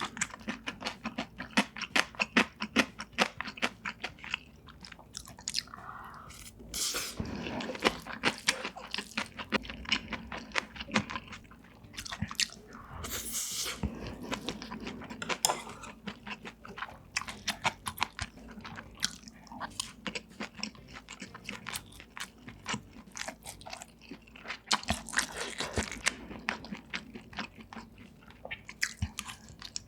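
Close-miked chewing of food with crisp crunching, many quick crunches in a row throughout and a few short, softer, noisier stretches.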